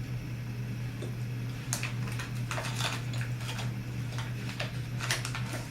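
Scattered light clicks and crinkles from handling a snack package, over a steady low hum.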